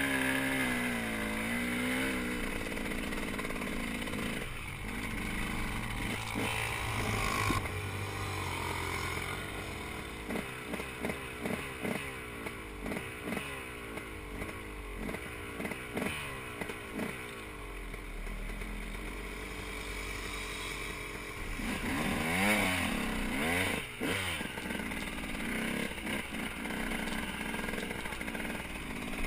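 Dirt bike engine being ridden on a sandy trail, its pitch rising and falling with the throttle, with a choppy stretch of quick on-off throttle pulses in the middle.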